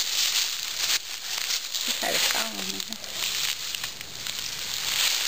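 Dry fallen leaves rustling and crackling as people move through the leaf litter, with a short voice sound about two seconds in.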